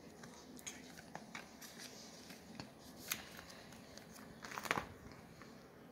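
Plastic card binder pages and sleeves being handled: scattered light clicks and rustles, then a louder plastic swish about four and a half seconds in as a binder page is turned over.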